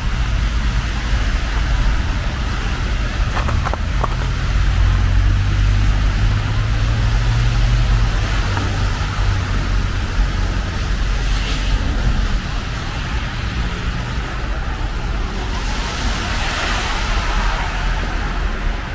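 Steady rain with road traffic rumbling on wet pavement underneath, and a louder swell of tyre hiss near the end.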